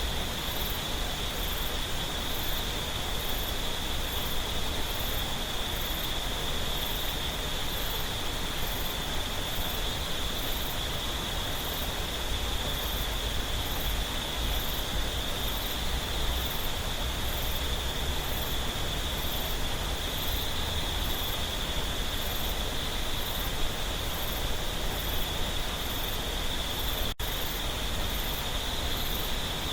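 Mountain stream water running steadily over rocks, with a steady insect drone and a high, faint insect chirp repeating about once or twice a second. The sound cuts out for an instant near the end.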